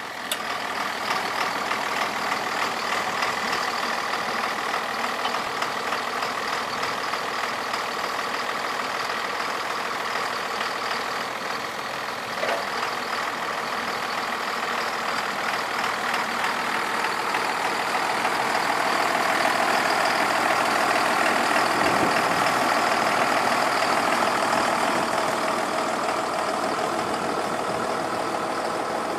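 Tractor engine running steadily at idle, getting somewhat louder about two-thirds of the way through.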